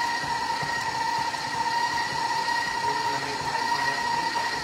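Electric stand mixer running steadily with a constant motor whine, its beater working through a bowl of cold, unsoftened cream cheese.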